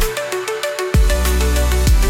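Electronic music: a repeating synth melody over quick, even hi-hat ticks, with a deep bass note that slides down in pitch about a second in and holds.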